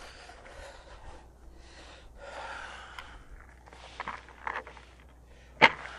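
A person's breathing, heard as soft hissing breaths, with a few sharp clicks from cartridges and plastic ammunition boxes being handled; the loudest click comes near the end.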